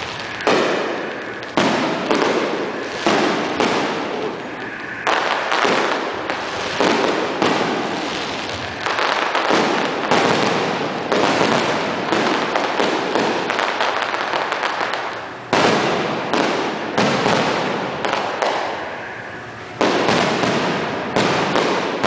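Aerial fireworks shells bursting overhead in rapid succession, a loud bang every second or two, each trailing off in a rumbling, crackling echo.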